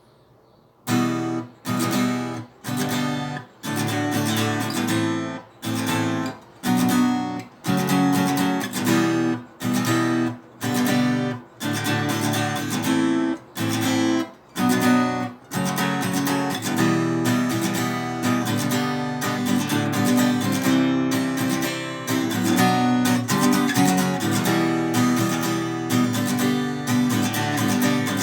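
Acoustic guitar strumming a song intro. It starts about a second in with short chords cut off by brief gaps, then settles into steady, continuous strumming from about halfway through.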